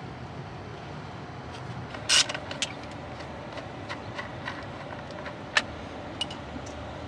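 Scattered metal clinks and a short rattle about two seconds in, as a car battery under a pickup's seat is unfastened with a wrench, over a steady low background hum.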